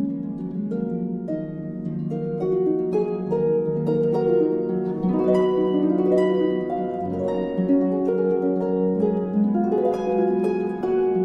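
Background music of plucked string notes, harp-like, ringing on and overlapping in a gentle flowing run.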